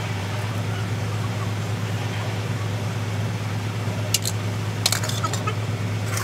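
Steady low engine hum, with a few sharp metallic clicks from tools on the truck's wheel hub about four and five seconds in.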